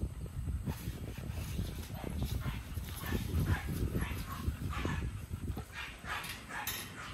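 An American bully dog whining and whimpering in short calls, about two a second, over a low rumble of handling noise.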